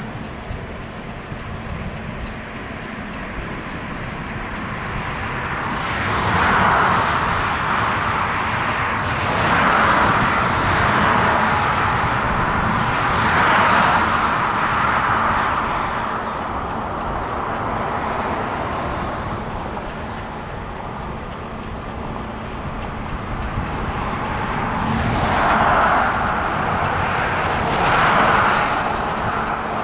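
Outdoor road traffic: about five vehicles swell up and fade as they pass one after another over a steady background rumble with a faint low hum.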